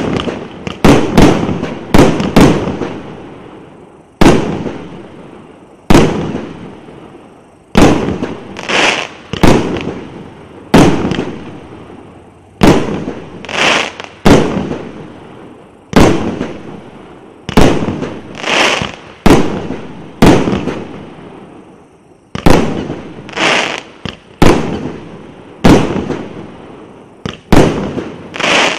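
A 1.2-inch 100-shot consumer fireworks cake firing shot after shot: sharp bangs about one a second, several followed a moment later by a second burst as the shells break overhead.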